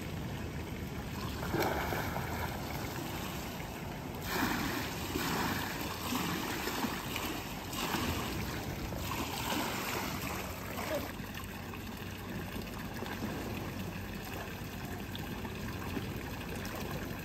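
Water trickling and splashing in a swimming pool as a person wades in and swims, with uneven splashes through the first part.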